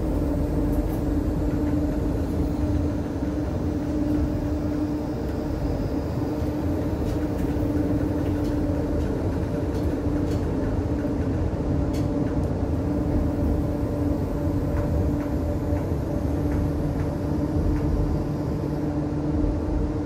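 Interior running noise of a Škoda Artic low-floor tram moving through a tight curve, heard at the articulation joint: a steady hum with a held tone, and a few light clicks.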